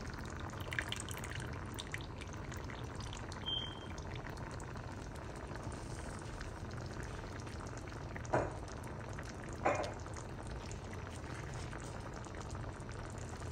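Pot of rice in chicken-gizzard broth boiling on the stove, a steady bubbling hiss. Two brief knocks a little past halfway.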